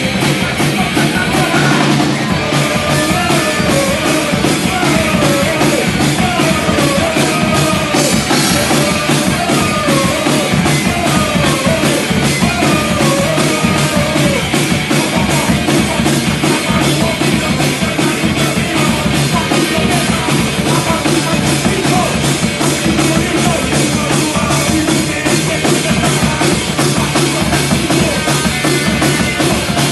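Loud, fast punk rock music with a full drum kit keeping a rapid, even beat.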